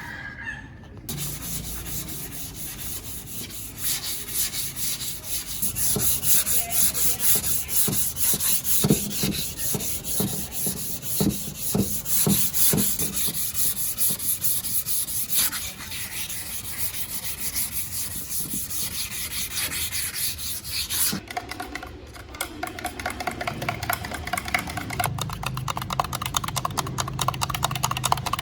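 Power sanding: a dense, steady rasping of abrasive worked against a surface. About 21 s in it cuts abruptly to a different machine sound with a steady motor hum.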